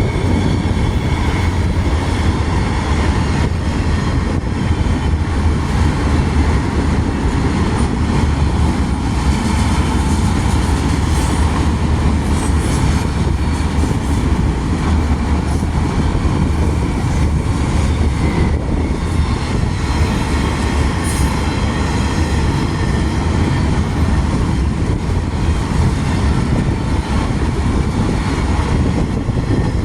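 CSX freight train's cars rolling steadily past on the rails, a continuous, unbroken sound of wheels on track.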